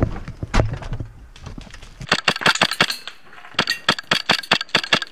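Footsteps over rubble for about the first two seconds, then rapid bursts of airsoft gunfire: sharp clicking shots, many to the second, in two clusters.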